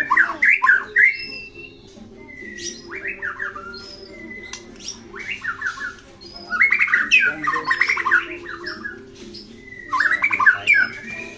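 White-rumped shama (murai batu) singing: varied phrases of rapid harsh notes mixed with short clear whistles. The loudest bursts come at the start, about halfway through, and near the end.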